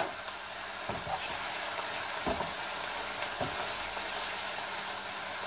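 Leek and onion filling sizzling with a steady hiss in a frying pan while a wooden spoon stirs it, the spoon knocking softly against the pan a few times, with one sharper knock right at the start.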